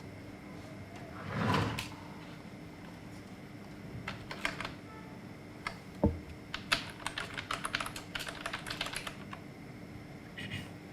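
Typing on a computer keyboard: a few keystrokes about four seconds in, then a quick run of typing lasting about three seconds, just after a single soft thump. Near the start, a short breathy whoosh is the loudest sound.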